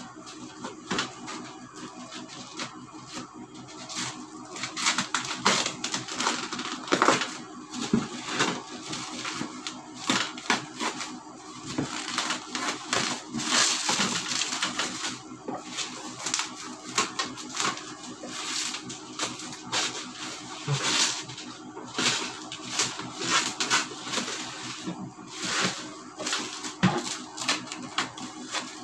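Bubble wrap and plastic packaging crinkling and rustling in irregular crackles as a parcel is cut open with scissors and the wrap is pulled away.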